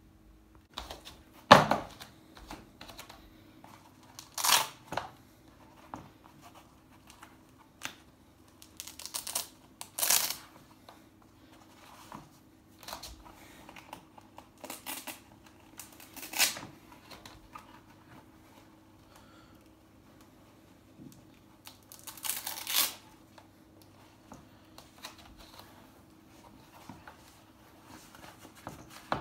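Hook-and-loop straps on a Nike Canyon sandal being ripped open, several short rasping rips a few seconds apart, with lighter handling clicks and rustles between them.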